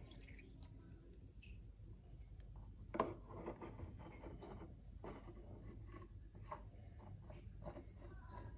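Faint handling sounds of a rubber-bulb plastic aquarium pipette being squeezed and dipped in water to suck up fish waste: one sharper tap about three seconds in, then a string of light clicks and squishes.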